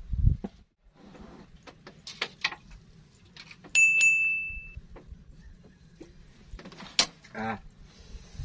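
Scattered light clicks and knocks over a faint low steady hum, with one short metallic ring lasting about a second a little under four seconds in and a sharp knock near the end.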